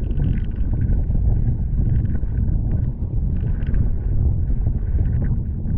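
Jet ski running fast over choppy sea: a heavy rumble of wind buffeting the microphone, with brief splashes of water and spray against the hull.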